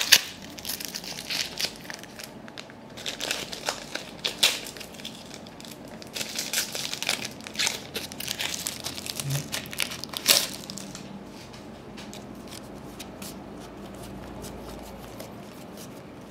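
A trading-card pack wrapper being torn open and crinkled, with repeated bursts of crackling for about ten seconds. After that come lighter clicks and rustles of the cards being handled and fanned through.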